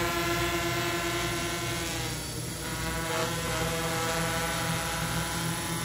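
Home-built quadcopter drone hovering, its electric motors and propellers buzzing steadily as a stack of tones that waver slightly in pitch.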